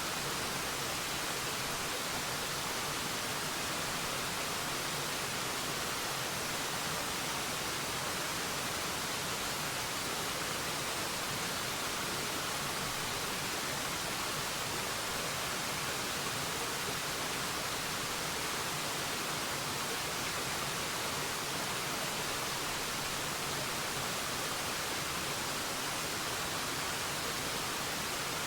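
Waterfall: a steady, hissing rush of falling water at an unchanging level.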